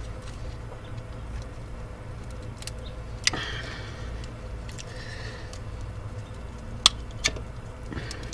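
Hand work in a car's engine bay, plausibly electrical connectors being unplugged: faint handling and rustling with three sharp plastic-sounding clicks, one about three seconds in and two close together near seven seconds, over a steady low hum.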